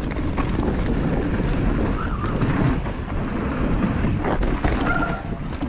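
Wind rushing over the microphone and a mountain bike rattling over a rocky trail on a fast descent, with a sharper knock about four seconds in.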